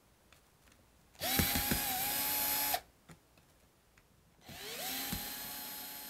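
Cordless drill/driver with a long Phillips bit backing out the screws of a deadbolt faceplate: two short runs, one about a second in and another from about four and a half seconds in, each whine climbing quickly to a steady pitch.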